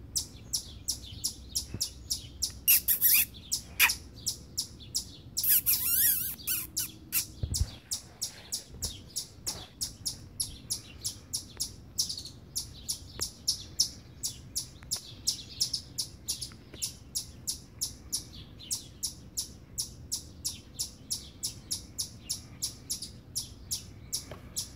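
A chipmunk's chip alarm call: short, high chips repeated at a steady pace of about three a second, with a brief flurry of louder, warbling calls about six seconds in.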